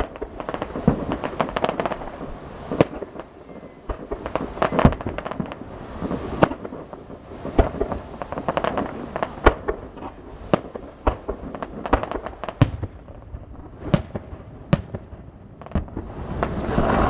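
Fireworks going off: a steady barrage of booms and sharp cracks, several to a second, with crackling between the bangs.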